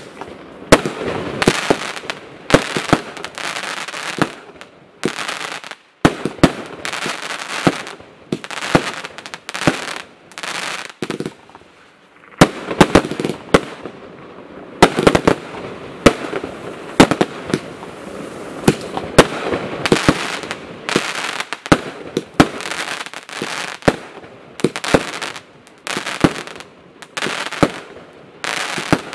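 Total FX Caged Tiger Unleashed firework barrage firing: sharp bangs in quick succession, one to three a second, with a rushing hiss between them. It pauses briefly about six and again about twelve seconds in.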